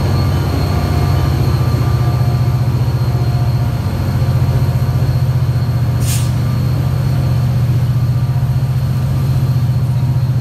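Diesel locomotive running with a steady, pulsing low rumble, with a short hiss about six seconds in.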